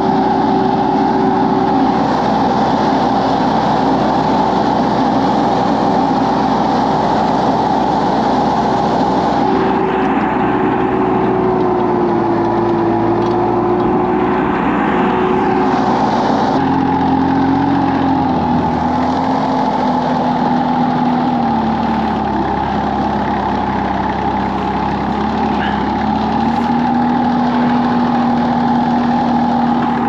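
Compact tractor's engine running steadily while the tractor drives; its pitch drops noticeably a little past halfway and then wavers slightly up and down.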